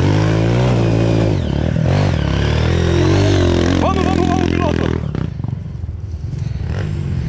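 Dirt-bike engine revving hard, its pitch rising and falling, as the bike climbs a steep loose-dirt trail; about five seconds in it drops to a lower, steadier running. A brief high call cuts through about four seconds in.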